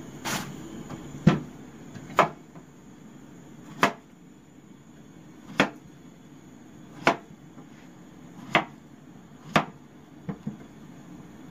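Kitchen knife slicing through a peeled banana and knocking on a plastic cutting board: about eight sharp knocks a second or two apart, with two lighter taps near the end.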